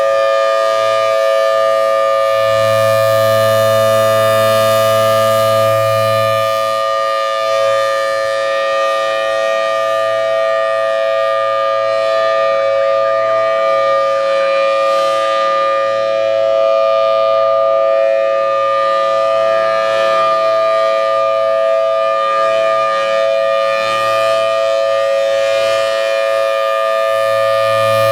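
Federal Signal Thunderbolt 1003 tornado siren sounding a loud, steady chord of two close tones at full pitch.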